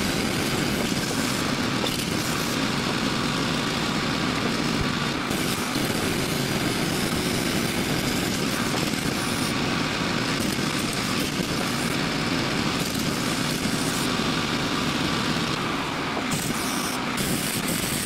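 An engine running steadily.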